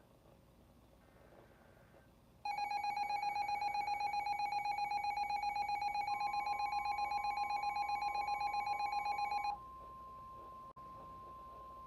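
A loud electronic alert tone, rapidly pulsing and buzzy, starts about two and a half seconds in and runs for about seven seconds. About halfway through, a steady single-pitch tone joins it: the NOAA Weather Radio warning alarm tone that comes before a warning message. The steady tone carries on alone, quieter, after the pulsing stops, with a brief dropout.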